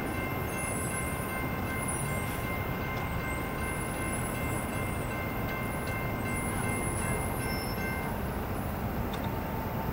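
Steady low rumble of a freight train rolling away after passing the crossing. Faint steady high tones sound over it, and one cuts off about eight seconds in.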